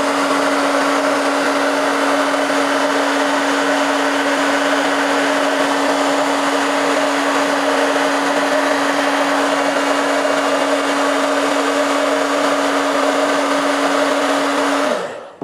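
VS Sassoon Airmax hair dryer running steadily, a rush of air over a steady motor hum, blowing hot air to soften the speaker's sealing paste. It is switched off near the end, the hum falling away as the motor winds down.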